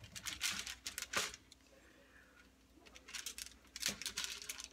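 Wax paper and foil crinkling in bursts as the sheet under a block of fudge is handled and pulled, with a couple of sharp clicks. The bursts come in the first second or so and again from about three seconds in, with a quieter lull between.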